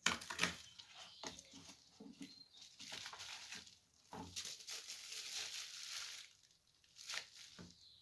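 A parcel being torn open and its packaging handled: crinkling and tearing in irregular bursts, with small clicks and short pauses between.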